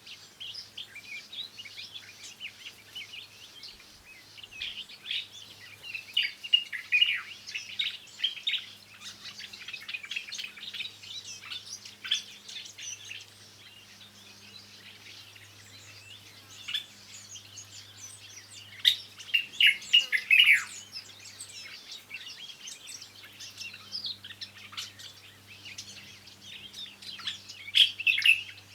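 Forest birds singing, many quick chirps and trills overlapping throughout, with louder flurries about a quarter of the way in, around two-thirds of the way in, and again at the end.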